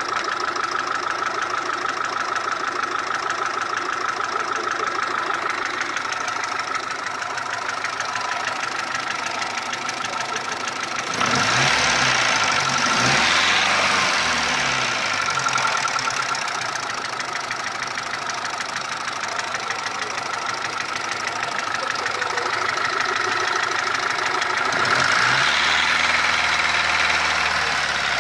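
Mitsubishi 1.3 petrol engine running with an abnormal engine noise, a fault that appeared after an overhaul in which the cylinder head and block were replaced. It grows louder and fuller twice for a few seconds, about a third of the way in and again near the end.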